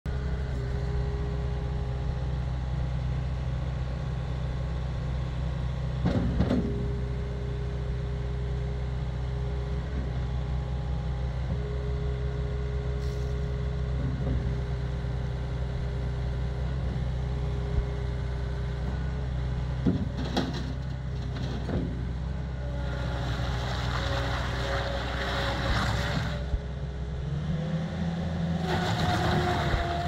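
John Deere 314G skid steer's Yanmar 2.0 L four-cylinder turbo diesel running steadily, with an on-and-off whine as the loader arms are worked and a few sharp clunks. Near the end the engine rises in pitch as the machine drives off.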